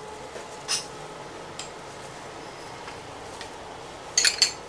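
Small dim sum dishes being handled and set down on a metal tray: a light click about a second in, then a quick run of sharp, ringing clinks near the end, over steady background noise.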